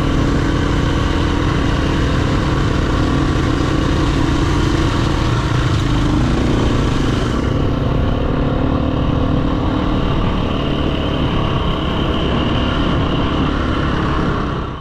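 Dirt bike engine running at a steady, even pace while riding along a dirt track. Fades out at the very end.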